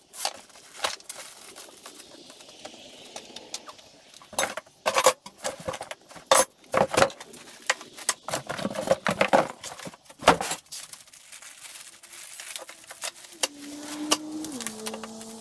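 Parts and packing of an Agri-Fab tow-behind broadcast spreader being unboxed and handled: packing rustles while metal parts clink and knock at irregular intervals. A steady hum that steps down in pitch comes in near the end.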